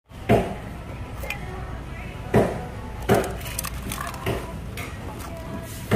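Live blue crabs clattering in a cardboard box: several sharp knocks and lighter clicks of shell against shell and cardboard, over a steady low hum.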